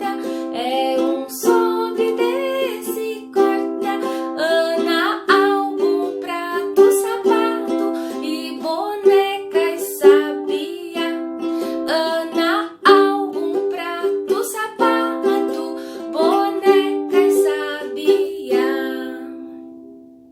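Music: a singer with a plucked string-instrument accompaniment performing a children's vowel song, fading out near the end.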